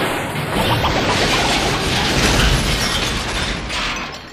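Cartoon sound effect: a loud, dense crackling rush with a low rumble, fading near the end, as something blasts out through a wall.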